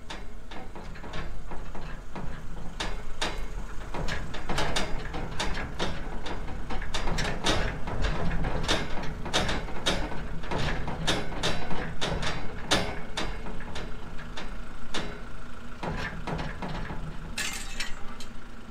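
Flatbed trailer rattling and clanking as it is towed slowly over rough ground, with a steady low hum from the towing truck's engine. The knocks are irregular and come several times a second.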